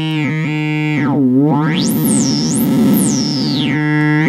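Serge modular Timbral Oscillator in a chaotic feedback loop through a slope generator used as a frequency divider: a steady low buzzy tone whose brightness sweeps up and down. About two seconds in it turns noisy and very bright, then settles back. This is a milder type of chaos, nearer to a wave-multiplier sound.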